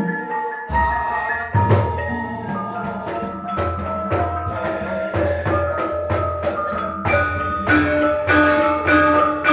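Javanese gamelan ensemble playing: bronze metallophones and gong-chimes striking ringing notes over hand-played kendang drum strokes. The ensemble grows fuller about a second in as the drums come in.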